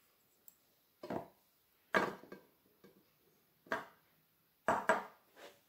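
A few short knocks and clatters of a small food colouring bottle and its cap being picked up, handled and set down on a hard countertop, one after another with pauses between.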